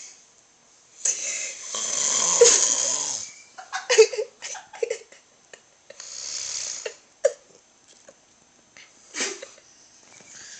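A person snoring: a long, loud snore about a second in lasting some two seconds, then a few short snorts and clicks, a softer snore around the middle and a brief one near the end.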